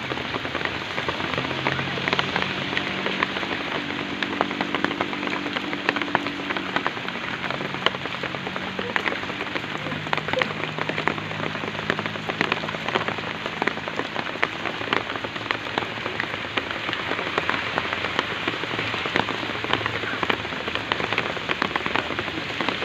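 Steady rain falling, a dense even hiss with many small drop ticks throughout.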